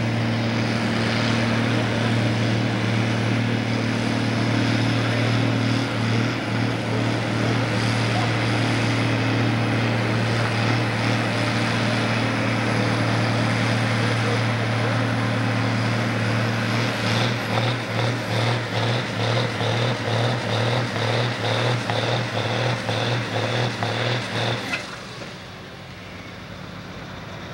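A farm-stock diesel tractor pulls a weight-transfer sled at full throttle, its engine a loud, steady drone. About two-thirds of the way in, the engine note begins to pulse about twice a second under the load. It then drops away sharply near the end as the pull finishes.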